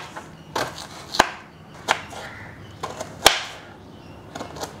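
Small kitchen knife slicing a flame-roasted, peeled onion on a cutting board: a string of sharp, irregular taps as the blade hits the board, about one to two a second, the loudest a little past one second and three seconds in.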